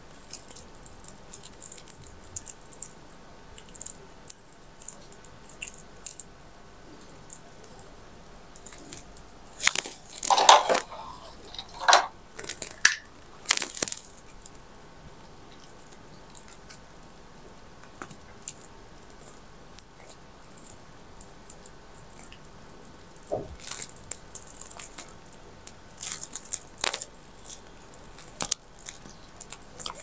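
Plastic raffia string rustling and crinkling in the fingers as it is knotted onto a nail, with small scattered ticks and a few louder handling noises about ten to fourteen seconds in.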